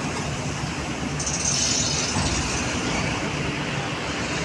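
Steady low rumble of heavy diesel engines running, with a hiss that starts about a second in and lasts about a second.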